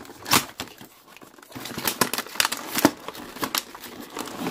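Small cardboard box being opened by hand: cardboard and paper rustling and scraping with irregular sharp clicks, sparser at first and busier after about a second and a half.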